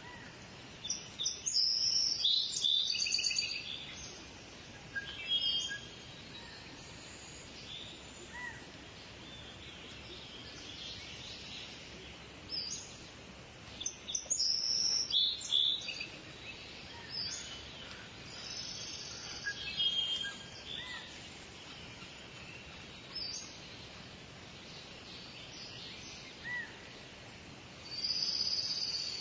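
Birds chirping and singing in short bouts of quick trills and whistles over a steady background hiss.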